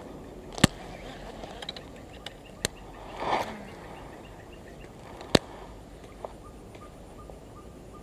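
Sharp clicks of a baitcasting rod and reel being handled: three loud ones, about half a second in, past two and a half seconds, and past five seconds, with a few fainter ones between. A short swish comes a little after three seconds, and faint regular ticking, about three a second, runs through the last two seconds.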